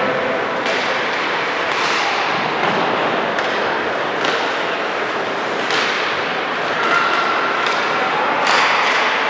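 Game sounds in a large echoing rink: a string of sharp knocks and slaps, about ten spread irregularly, of sticks and puck, over a steady wash of crowd and play noise.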